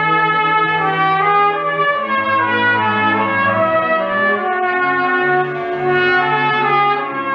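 Orchestral music interlude from the radio play's score, with brass prominent, playing a slow line of long held notes that change about once a second.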